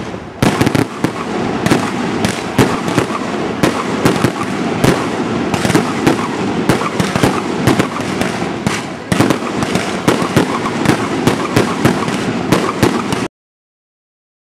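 Fireworks display: aerial shells bursting in a dense, rapid barrage of bangs, which cuts off suddenly near the end.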